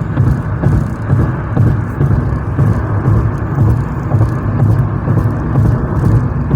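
A car on the move: a steady low rumble of road and engine noise.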